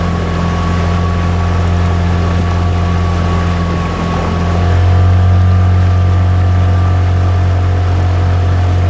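Boat engine running steadily with a low drone, heard from on board; it gets a little louder about five seconds in.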